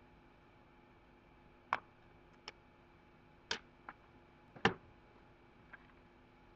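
Sharp little plastic clicks and taps from a Samsung GT-I5500 Galaxy 5 smartphone being taken apart by hand. There are about six in four seconds, and the loudest is about three seconds in.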